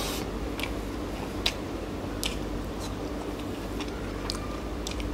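Close-up eating sounds: wet chewing with irregular mouth smacks and clicks, the sharpest about a second and a half in, over a steady low hum.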